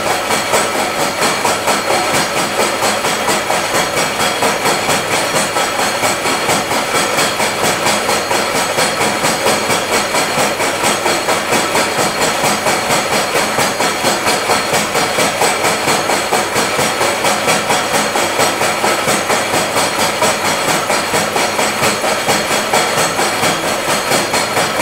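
Vertical milling machine face-milling a metal workpiece held in a vise: the cutter runs steadily through the cut, making a loud, evenly pulsing metal-cutting noise with a thin ringing whine over it.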